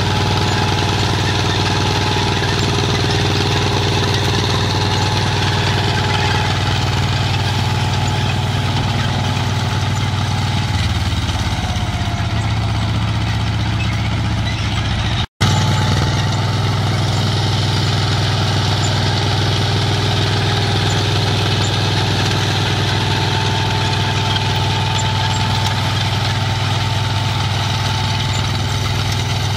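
Small vintage crawler tractor's engine running steadily under load as it tows a reaper-binder cutting wheat. The sound breaks off for an instant about halfway through, at an edit.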